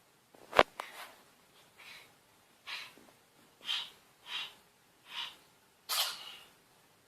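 A cat sneezing in a run: about six short, breathy sneezes, one every three-quarters of a second or so. A sharp click comes about half a second in.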